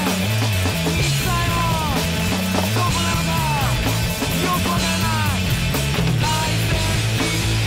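Punk rock music with electric guitar, bass and drums, the guitar bending notes downward every second or so.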